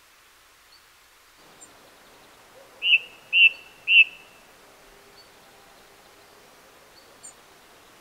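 A songbird gives three short, loud call notes about half a second apart, a few seconds in, with a few faint high ticks around them.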